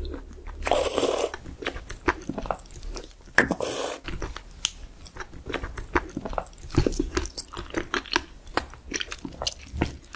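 Close-up eating of raw sea cucumber innards: two longer slurps as the stringy strands are drawn into the mouth, about half a second in and again about three and a half seconds in, then many short wet chewing smacks and clicks.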